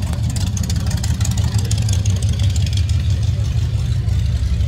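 A car engine idling steadily with a deep, even rumble.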